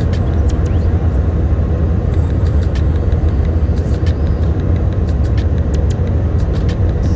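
Steady low rumble of a moving vehicle heard from inside, with frequent short rattles and clicks from the cabin fittings.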